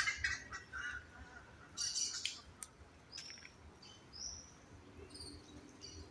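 Birds chirping and calling: a run of short, high notes, busiest in the first couple of seconds, then scattered single calls.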